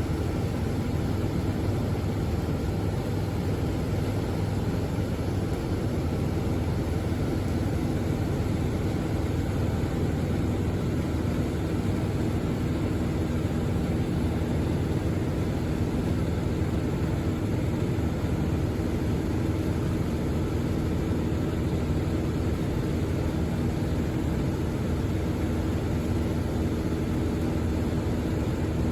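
Steady, unchanging engine drone with a low hum of even tones, as from a running vehicle.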